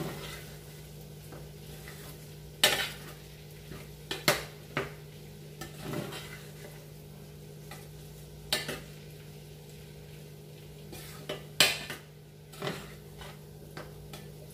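Metal spoon stirring a potato masala filling in a stainless steel frying pan, with about ten irregular sharp clinks and scrapes of spoon against pan.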